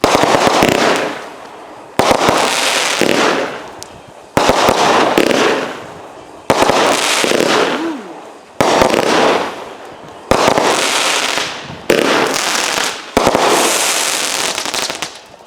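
A 36-shot consumer fireworks cake firing a shot about every two seconds, eight in all. Each shot is a sharp bang followed by a crackling tail that fades away, and the last tail runs the longest.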